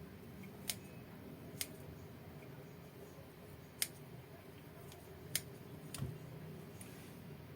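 A few sharp, short clicks at uneven intervals, five in all, from kitchen utensils being handled while fried tofu is stuffed, over a faint steady low hum.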